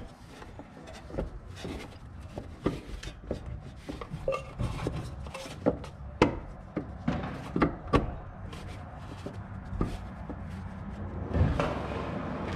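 New rear air spring on a BMW X5/X6 being twisted clockwise by hand to lock it into its mount: irregular clicks, knocks and rubbing of the rubber and plastic against the suspension parts, with a louder rub about 11.5 seconds in.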